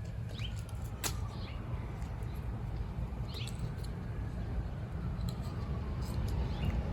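Scattered light clicks and handling noises over a steady low rumble, with a faint tone sliding slowly down in pitch in the background.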